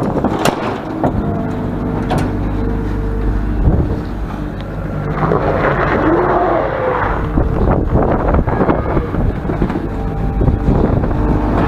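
Tractor engine running steadily at low revs, with a few sharp clicks and knocks over it.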